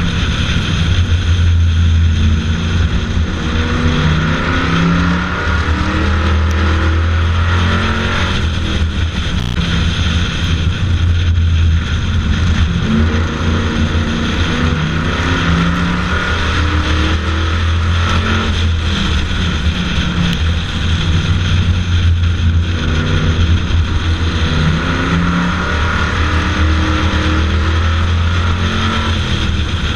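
Bomber stock car's engine running hard under race load, heard from a hood-mounted camera, its pitch rising and falling several times as the car accelerates and lifts around the oval.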